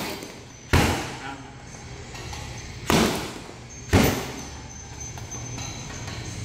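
Kicks landing on a hanging heavy punching bag: one sharp thud about a second in, then a pair about a second apart in the middle, a front kick followed by a switch roundhouse kick off the same leg.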